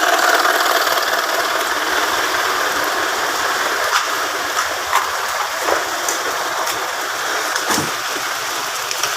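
A press machine's motor running steadily, with a few short sharp clicks and knocks of metal in the middle.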